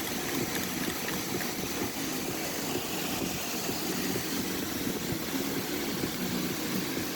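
A steady mechanical hum, like a motor running evenly in the background, with no distinct events.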